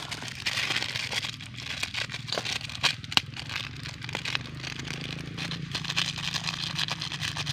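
Plastic seasoning sachet crinkling and scraping as it is handled and its powder shaken out over the batter, with many small irregular crackles. A steady low hum runs underneath.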